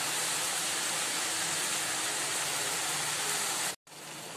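Chopped greens, onions and green chillies sizzling in oil in an aluminium kadai: a steady frying hiss that cuts off abruptly near the end and comes back quieter.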